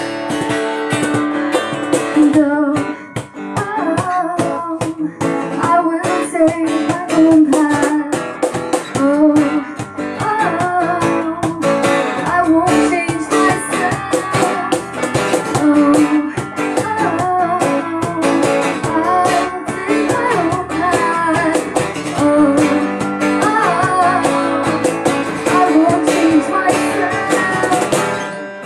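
Small band playing live together: a woman sings into a microphone over keyboard and electric bass, with a cajon keeping a steady beat.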